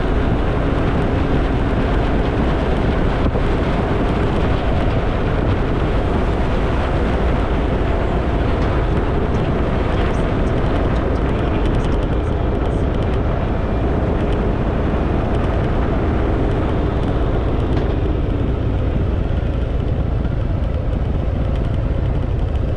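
Harley-Davidson Fat Boy V-twin motorcycle engine running steadily under way, under a heavy low rumble.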